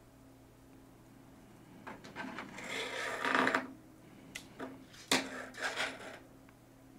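Handling noise as an Arduino board and jumper wires are moved about on a tabletop: a scraping rub about two to three and a half seconds in, then a few light clicks and knocks.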